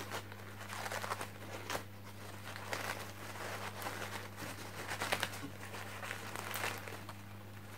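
Crinkling and rustling of packaging as a wrapped cactus is unwrapped by hand, in many short irregular crackles, over a steady low electrical hum.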